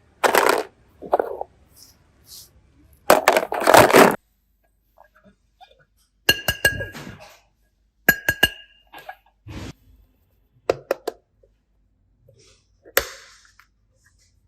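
Small hard containers clinking and knocking against each other, some clinks briefly ringing, between louder rustling or shaking noises from handling.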